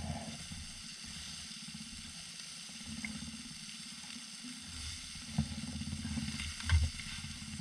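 Striped bass fillets sizzling in a thin metal toaster-oven pan on a portable stove. A few short knocks of a utensil against the pan come in the second half, the loudest about a second before the end.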